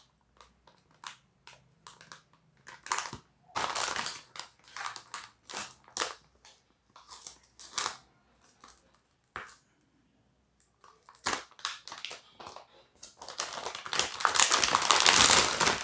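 Metallized anti-static shielding bag crinkling and rustling in the hands as it is pulled open around a graphics card. It comes in many short crackles, with a pause about two-thirds of the way through, then a long, loud spell of dense crinkling near the end.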